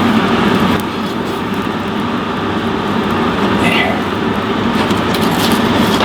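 Forge running with a steady rushing noise, with a few light metal clinks from long steel bars being worked into the fire.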